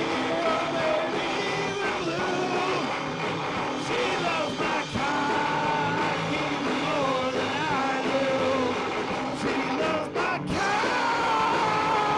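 Rock band rehearsing a song: a voice singing over guitar-driven rock music, picked up by a single old microphone on the floor and recorded to cassette tape. A long gliding note comes in near the end.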